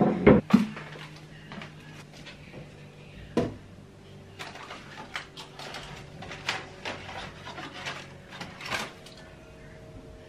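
Household items being handled and taken off wooden kitchen cabinet shelves: scattered knocks, clatter and rubbing of objects against the shelves and counter, with one louder knock about three seconds in. A faint steady hum runs underneath.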